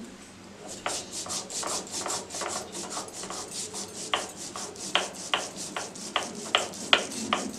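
Rapid hand scraping strokes with a kitchen utensil, about five a second, joined from about four seconds in by sharper knocks about twice a second.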